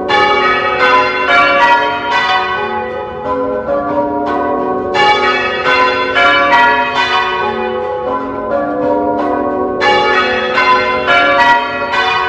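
Church bells rung in changes (full-circle change ringing), the bells striking one after another at about three strikes a second, each ringing on over the next. Brighter rows and duller rows alternate roughly every five seconds.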